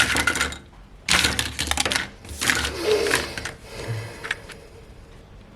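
Small hard plastic toy pieces clattering and rattling in fast clicks, in three bursts, then a few lighter ticks.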